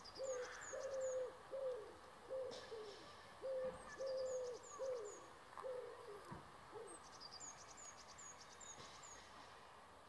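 Common wood pigeon singing: a run of soft, low cooing hoots in two phrases, stopping about seven seconds in. A small bird's high, thin calls come in short runs three times over it.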